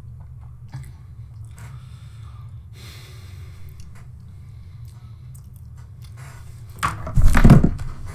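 Faint clicks and crackles close to the microphone over a steady low hum, then a loud, short burst of noise about seven seconds in.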